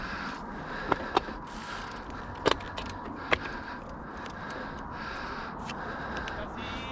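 Mountain bike tyres rolling and scraping over a dirt trail, with four sharp knocks from the bike in the first few seconds.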